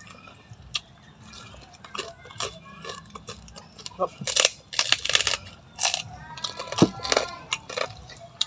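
Crunchy food being bitten and chewed up close, with a run of loud crunches about four to five seconds in and a few more near seven seconds.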